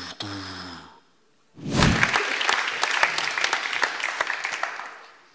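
Audience applause that breaks out suddenly about one and a half seconds in, a dense patter of many hands clapping, dying away near the end. A man's drawn-out voice comes just before it.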